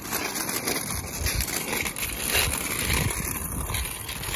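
Kick scooter's small wheels rolling over rough asphalt, a steady gritty noise, with wind buffeting the microphone in irregular low thumps.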